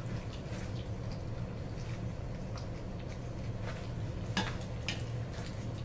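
Puppies lapping and smacking at soupy rice mush in a stainless steel tray, with small wet clicks and light knocks against the metal, the sharpest a little over four seconds in.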